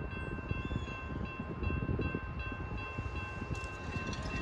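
Distant CSX locomotive air horn sounding one long, steady chord of several notes as the coal train approaches out of sight, over a low rumble.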